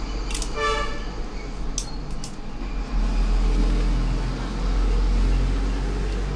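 Steady low rumble of background traffic, with a short vehicle horn toot about half a second in and two sharp clicks around two seconds in.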